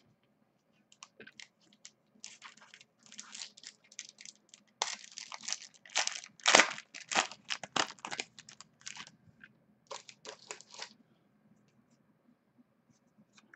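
Foil wrapper of a 2011 Bowman Platinum card pack crinkling and tearing as it is ripped open by hand: a run of sharp crackles, loudest a few seconds in, dying away to faint card handling near the end.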